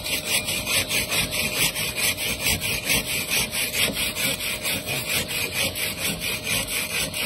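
Hand block saw cutting through concrete block, rasping in quick, even back-and-forth strokes, about three a second.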